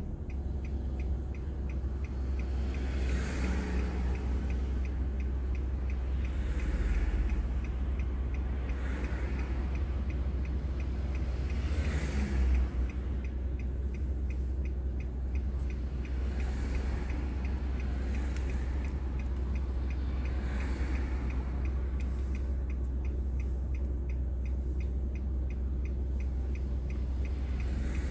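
Road noise inside a moving car, picked up by its drive recorder: a steady low rumble, with passing traffic swelling and fading every few seconds, the loudest pass about twelve seconds in. A faint, regular ticking runs underneath.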